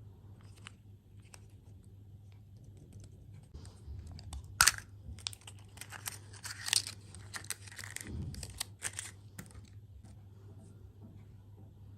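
Close-up eating and handling noises: scattered sharp clicks and short crinkling, tearing rustles, busiest in the middle with one loud click, over a steady low hum.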